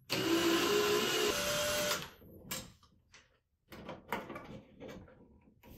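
Cordless drill/driver spinning for about two seconds as it backs out a wall switch's mounting screw, its whine jumping up in pitch partway through. Then light clicks and handling noises as the switch is worked loose.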